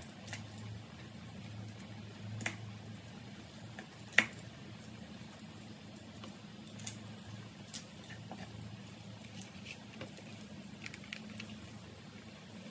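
Cleaver cutting napa cabbage leaves on a wooden cutting board: scattered sharp knocks of the blade on the board with soft handling of the leaves, the loudest knock about four seconds in, over a low steady hum.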